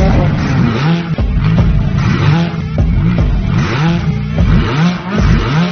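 A racing car engine sound, revving up again and again, about twice a second, with music underneath.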